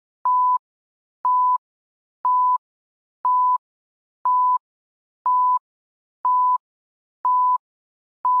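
Film-leader countdown beeps: a short beep of the same pitch once a second, each starting with a faint click, nine in a row.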